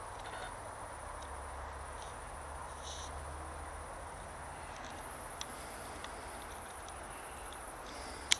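Crickets chirring in a steady, high-pitched drone that breaks off briefly a couple of times, over soft outdoor hiss. A sharp click comes near the end.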